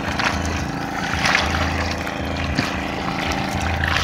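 A boat's motor running steadily, with fish thrashing and splashing in a net full of catch at the water's surface.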